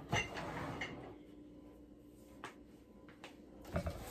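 A few light knocks and clicks of decorations being handled on a wooden countertop. The loudest is a short cluster of knocks near the end, as a gingerbread house ornament is taken hold of and shifted.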